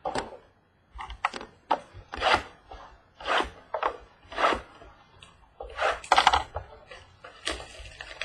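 Cardboard trading-card boxes being handled and opened: a series of short, irregular scraping and rubbing strokes of cardboard against cardboard and the table.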